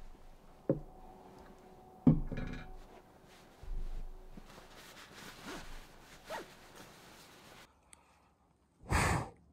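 Sleeping bag and bedding rustling as they are handled, with a couple of sharp knocks in the first few seconds. Near the end, a short puff of breath blowing out a candle in a glass jar.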